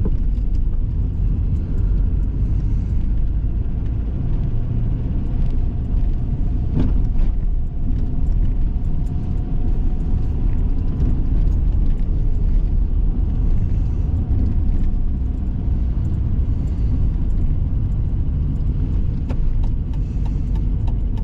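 Steady low rumble of a car on the move, engine and road noise heard from inside, with a single knock about seven seconds in.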